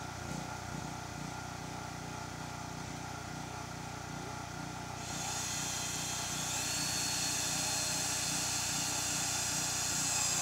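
An engine running steadily at idle with an even low throb. About halfway through, a high hiss with a faint thin whine joins it.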